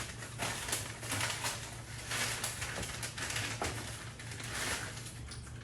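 Irregular rustling and light clicking of small fork parts being handled, the new fork spacers and their packaging, over a low steady hum.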